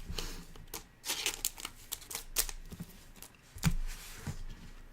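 Trading cards and their plastic packaging being handled: irregular crinkling and rustling with a run of sharp clicks and taps.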